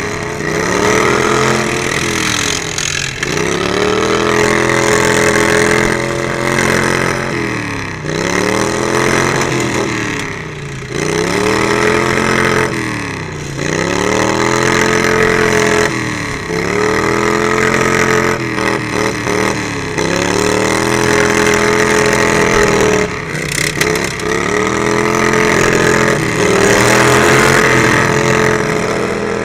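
Derby lawn mower engine revving, its pitch dipping and climbing back up again and again, about every two to three seconds.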